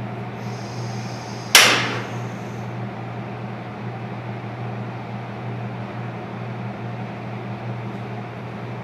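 Steady low hum with a rushing noise under it, and one sharp clank about a second and a half in that rings off briefly.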